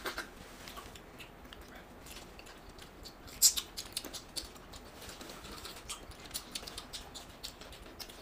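Faint scattered clicks and light taps of small things being handled, with one sharper click about three and a half seconds in.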